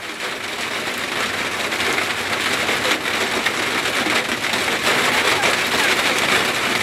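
Heavy rain pouring down steadily, with many small sharp ticks of impacts on hard surfaces, growing a little louder over the first two seconds.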